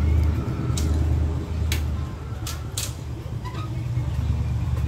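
Four sharp metallic clicks, the first about a second in, as a small bolt and nut are handled and fitted into a starter motor's contact-point housing, over a steady low rumble.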